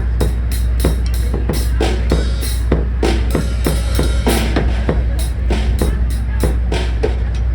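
Music with a steady drum-kit beat of kick and snare over a constant heavy bass.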